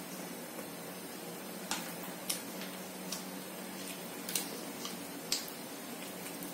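Eating by hand: a few short wet clicks and smacks, about seven, spaced irregularly, from chewing and fingers picking at fried fish, over a steady low hiss.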